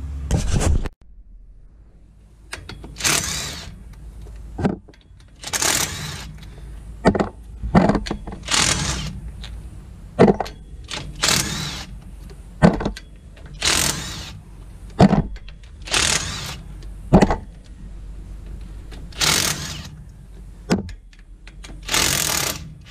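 Hand ratchet clicking in short runs, one run every second or so, as it spins out the axle shaft flange bolts on a GM 14-bolt full-floating rear axle; the bolts were already broken loose, so they turn freely. A thump right at the start.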